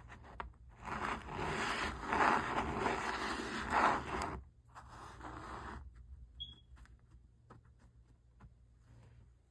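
Kinetic sand being pushed and scraped across a smooth board by fingers, a dense crumbly scraping that is loudest in the first half and stops about four and a half seconds in. After that there are only faint soft taps and presses as fingertips pack the sand into metal cookie cutters.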